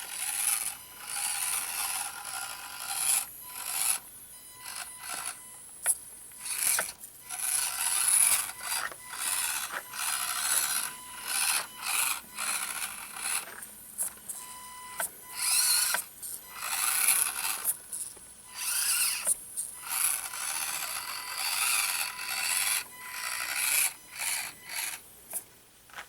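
Axial SCX24 micro crawler's small brushed electric motor and geared drivetrain whining in many short stop-start bursts as it is driven over a tight crawler course, with some scraping.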